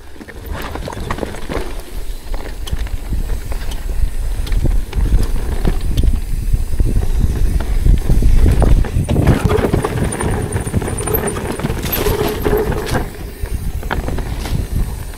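Mountain bike riding down a rocky trail: tyres and bike clattering over rocks in a rapid run of knocks, over a steady rush of wind on the action camera's microphone, loudest a little past the middle.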